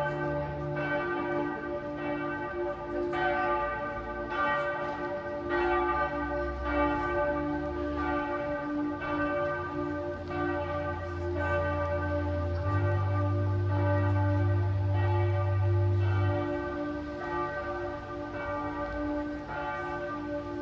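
Church bells ringing, struck roughly once every second or so, with their tones hanging on between strokes. A low steady drone sits underneath for several seconds in the middle.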